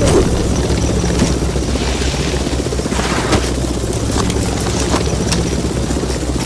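CB radio receiver on channel 28 putting out steady static hiss over a low hum, with scattered sharp crackles and pops that come more often after about three seconds.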